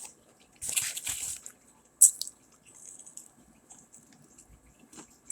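Close-up eating sounds: wet mouth clicks and smacks while chewing food, with a short noisy rustle about a second in and a sharp click about two seconds in.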